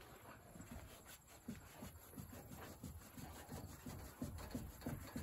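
Faint scattered knocks and rustles, irregular and mostly low.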